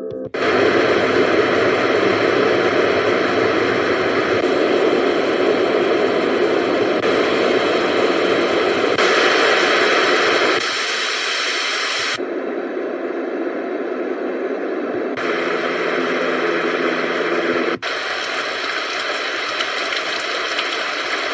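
iDealSleep white noise machine playing a steady rushing noise that switches abruptly to a different noise track every few seconds, some brighter and hissier, some duller and deeper, as its noise sounds are stepped through.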